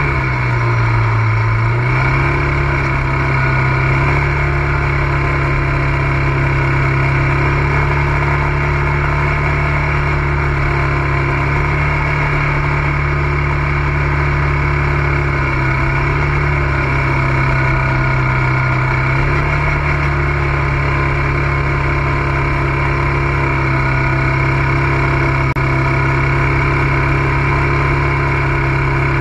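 ATV engine running steadily, its pitch dipping briefly and coming back up about two seconds in, then holding nearly even.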